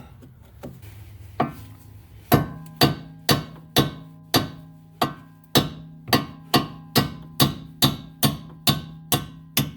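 Hammer striking the nut on the end of a rusted strut-to-knuckle bolt to drive it out of the steering knuckle, about two steady blows a second with the steel ringing after each. One softer knock comes first, then about sixteen sharp hits; the top bolt comes free by the end.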